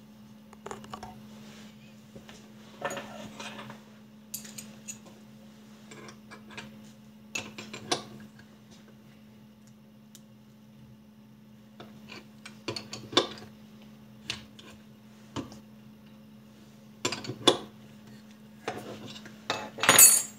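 Steel open-end spanners clinking against a CNC router spindle's collet nut and each other during a cutter change: scattered metallic clicks and short clusters of clinks, the loudest cluster near the end.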